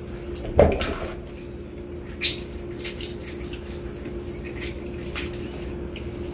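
Wet raw chicken pieces being rubbed by hand with a cut lime over a steel bowl, making scattered squishy clicks and a few sharper knocks, the loudest about half a second in. A steady low hum runs underneath.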